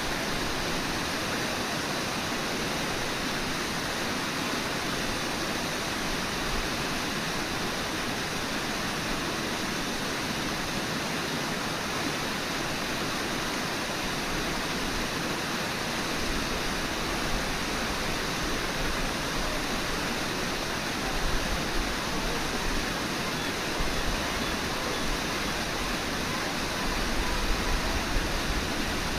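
Fast-flowing river water rushing in a steady, unbroken wash, with a few low bumps late on.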